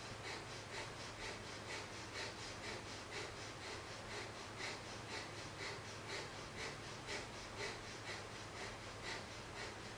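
Breath of fire: rapid, even, rhythmic breathing through the nose, about two breaths a second, faint.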